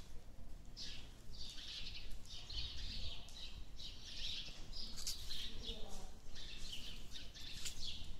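Small birds chirping and twittering: many short high chirps overlapping in a continuous run.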